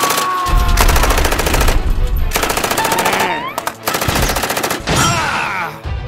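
Rapid Gatling-gun fire as a cartoon sound effect: a long burst of about three and a half seconds, a brief break, then a second, shorter burst.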